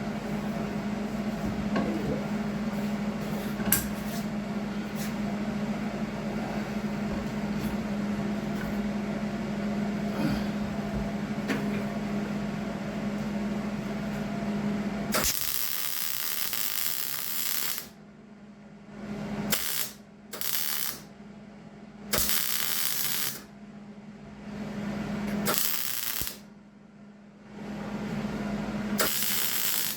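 MIG welder welding a crack in a steel lawnmower deck: a steady hum for the first half, then short runs of arc sizzle, one of about two and a half seconds followed by several shorter tack welds a few seconds apart.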